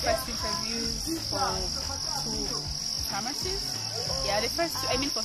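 Steady high-pitched insect chorus, one unbroken shrill tone starting at the cut, with a woman talking over it.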